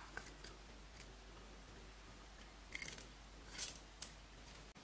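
Quiet handling of a plastic toy capsule over a glass dish of slime: a light click about a second in, two short crinkly rustles in the second half, and another click near the end.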